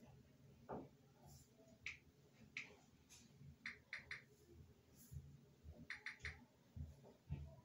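Near silence broken by faint scattered clicks, including two quick runs of three, and a few soft low knocks near the end.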